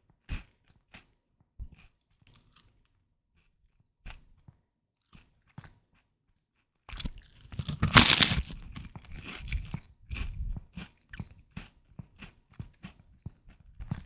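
Puffed rice being bitten and chewed close to the microphone. A few faint scattered crackles come first, then a loud crunching bite about eight seconds in, followed by a run of crunchy chews.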